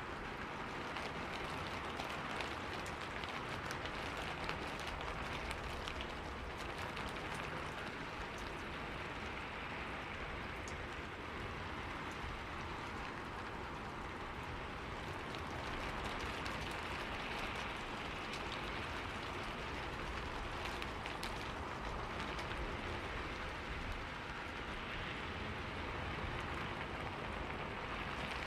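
Steady rainfall: an even hiss with scattered sharper ticks of individual drops, over a low rumble.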